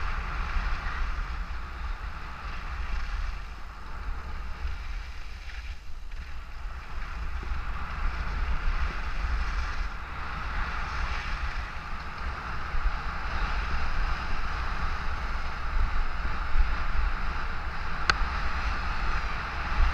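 Wind buffeting the microphone over a steady hiss and scrape of edges sliding on groomed snow during a continuous downhill run, the hiss swelling and easing with the turns.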